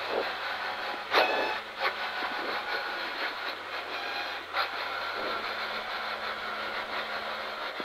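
Cabin noise inside a Volvo 940 rally car rolling along a gravel road after the stage finish: a steady rumble of tyres on gravel with the engine low underneath, and loose rattles and sharp knocks from the shell, the loudest knock about a second in.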